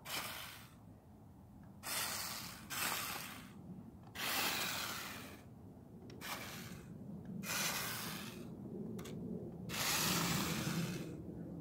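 Remote-control toy pickup truck driven in short start-stop spurts over a concrete sidewalk. Its small electric motor and tyres sound in about seven brief bursts, each lasting under a second.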